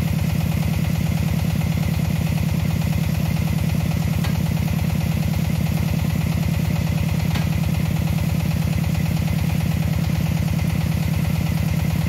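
Hitachi ZX210F-5G excavator's diesel engine idling steadily with an even low pulse.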